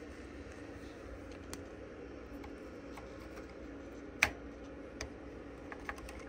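A few short, sharp clicks and light taps over a steady low hum, the loudest click about four seconds in.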